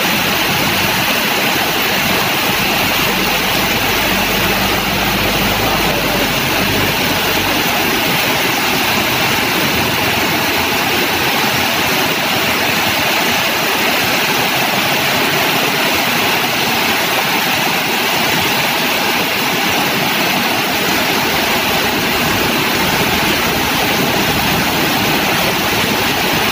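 Heavy rain pouring down in a steady hiss, with traffic driving through floodwater on the road: engines running and tyres splashing through the water. A low engine rumble is stronger in the first few seconds.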